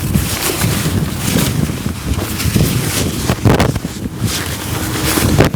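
Strong wind buffeting the microphone, with irregular rustles and knocks of bivvy fabric and poles being handled as the poles are connected.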